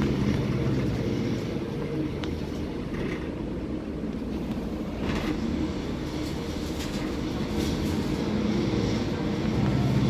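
Mercedes-Benz OC500LE bus's diesel engine and drivetrain running as the bus drives along, heard from inside the passenger cabin as a steady low drone, with a few light rattles about halfway through.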